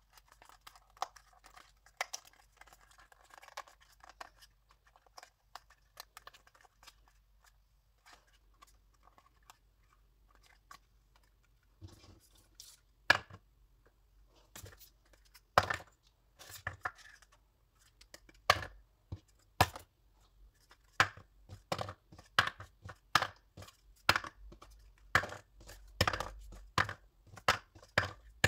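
Stiff cardstock being folded and handled with a soft rustle, then a long irregular run of sharp taps and clicks as the folded paper piece is pressed and handled on a wooden table.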